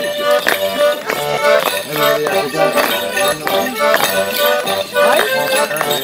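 Accordion playing a lively traditional English dance tune, with the clatter of clogs striking the paving in time as the dancers step.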